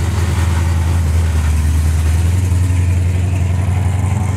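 Classic car engine running with a deep, steady, low rumble as the car rolls slowly past at little more than idle.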